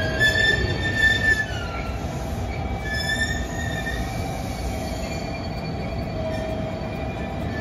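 Railway wheels squealing against the rails as a train rolls along, several high wavering tones over the steady rumble of the train running.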